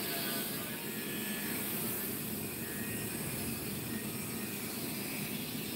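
Steady background hiss from a call's audio line, with no speech.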